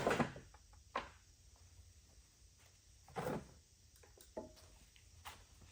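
A few short clicks and scrapes as the oil filler dipstick is pulled from the small generator engine's crankcase and pushed back in to check the oil level. The louder scrape comes about three seconds in.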